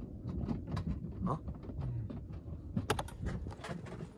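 Spinning reel being cranked, with a run of irregular mechanical clicks from the reel, as a hooked flounder is reeled up on a bent rod.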